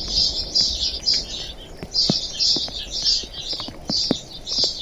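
Many small birds chirping in dense, overlapping bursts, with scattered single drops of rain ticking in between.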